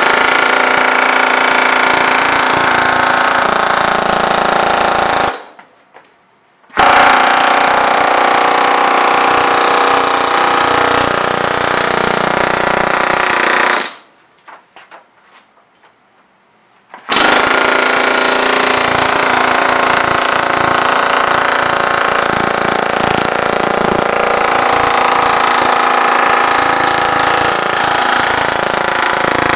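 Pneumatic air hammer (rivet gun) hammering, forming the edge flange of a thin aluminium wing rib over a form block. It runs in three long bursts of rapid hammering, cut off twice for a second or two.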